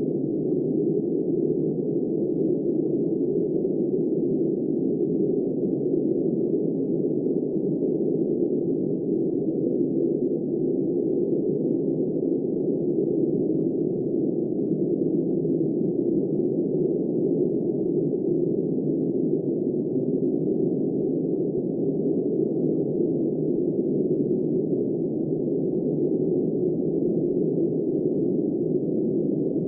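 Steady wind noise, a low, even rush with no gusts or breaks.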